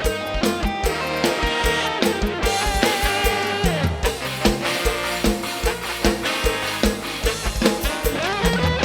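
Instrumental band music with a steady drum-kit beat, bass and a melodic lead line.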